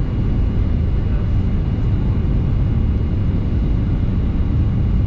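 Steady low rumble of a vehicle's running noise, heard from inside the cabin.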